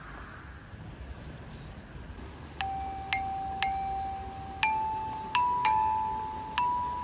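Outdoor glockenspiel with metal bars struck one note at a time with a ball-headed mallet, each note ringing on. After a faint first two seconds come seven strikes: three on the same note, then the notes step upward.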